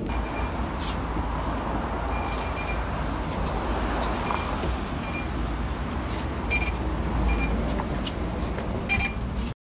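Low engine rumble inside a city bus, with several short electronic beeps from the fare-card readers as passengers tap in while boarding. The sound cuts off abruptly near the end.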